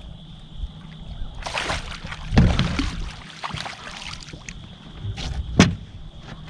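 A hooked bass thrashing and splashing at the surface beside the boat as it is scooped with a landing net, the water sloshing, loudest about two seconds in. Two sharp knocks follow near the end.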